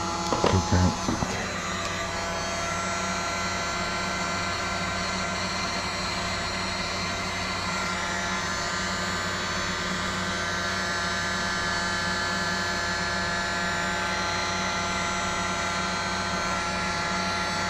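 Electric heat gun blowing steadily, its fan running with a steady hum, as it heats a lead jig head for powder painting. A few brief louder sounds come in the first second.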